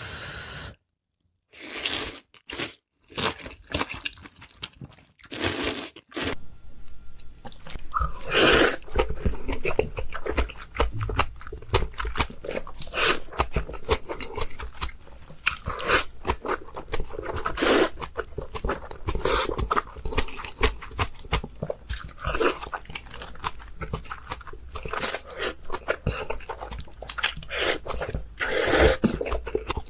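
Close-miked eating: crunchy bites and chewing, sparse and broken by a brief silence in the first few seconds, then near-continuous crackling crunches.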